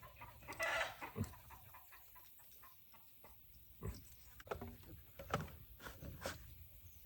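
A chicken clucks briefly about half a second in, followed by scattered short clicks and knocks.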